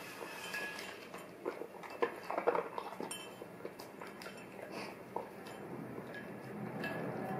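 Golden retriever eating cereal from a bowl: chewing and lapping, with a spoon clinking against the bowl, a burst of louder clinks and mouth noises about two seconds in.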